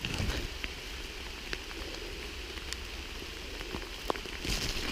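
Steady rain falling, with scattered single drops ticking close by, and short louder bursts of noise at the start and near the end.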